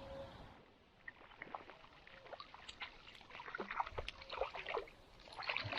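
Light splashing and dripping water in scattered small splashes, growing busier from about three seconds in.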